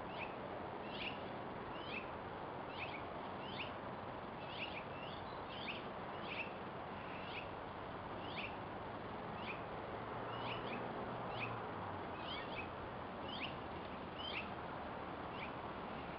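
Small birds chirping up in a tree: short, downward-sweeping chirps repeated about twice a second, over a steady background hiss.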